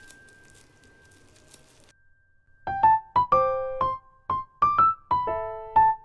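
Background music: a piano-like keyboard playing single bright notes one after another, two or three a second, starting about two and a half seconds in. Before the notes, only faint crackling.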